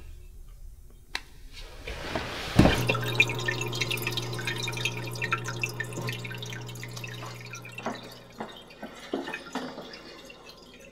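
Aquarium water dripping and trickling, with a steady low hum from the tank's filter that starts with a click about two and a half seconds in and stops after about eight seconds, while the irregular dripping goes on.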